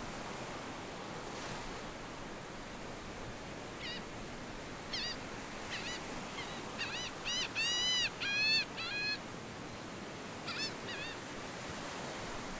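Bird calls over a steady hiss: short, arching, high calls begin about four seconds in, come in a quick, louder run in the middle, and end with a few more near the end.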